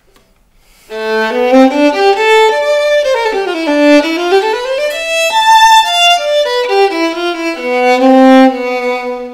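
Violin bowed with a rubber mute on the bridge: a short muted passage that starts about a second in, with a quick run down and back up in the middle, ending on a long low held note.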